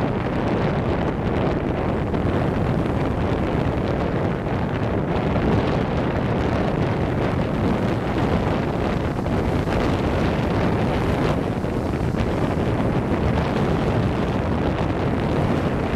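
Wind buffeting the camera's microphone: a steady rushing rumble with no distinct events.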